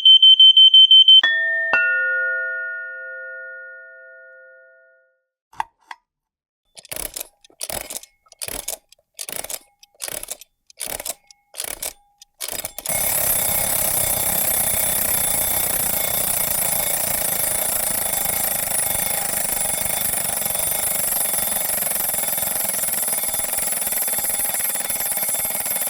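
A run of household sound effects: a fast high electronic beeping stops about a second in, then a two-note doorbell chime rings and fades. After a couple of clicks come about nine short bursts, then a steady motor-like whirr with a high whine sets in about halfway through and keeps going.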